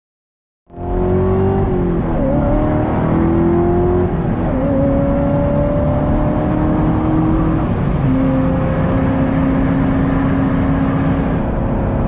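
Corvette ZR1's supercharged V8 running loud under way, starting suddenly about a second in; its engine note steps down in pitch three times as gears are shifted.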